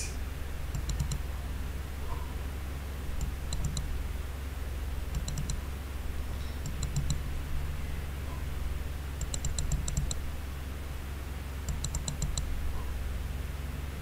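Computer mouse clicking in six short runs of several quick clicks each, spaced a second or two apart, over a low steady hum.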